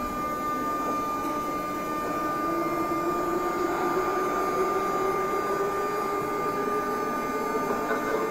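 Moscow metro train standing at the platform with its doors open, its onboard equipment giving a steady hum with a high constant whine. From about two and a half seconds in, a lower drone slowly rises in pitch and grows a little louder.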